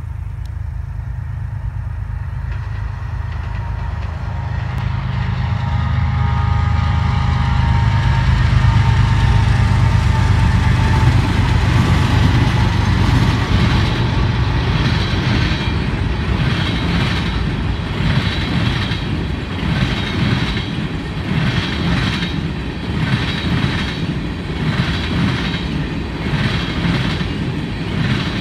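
Freight train passing close by: the diesel locomotive's low engine rumble builds as it approaches and goes by. Then the flatcars loaded with wind turbine blades roll past with a steady, even rhythm of wheel clicks over the rail joints.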